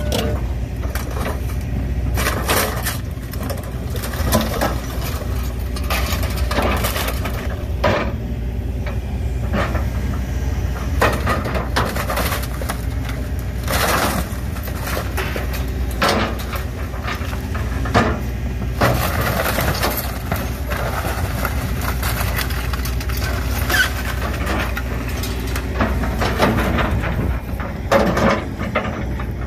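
An excavator's diesel engine runs steadily under repeated crunching, cracking and clattering as its bucket smashes and tears apart a scrap motorhome's wood framing and sheet-metal body.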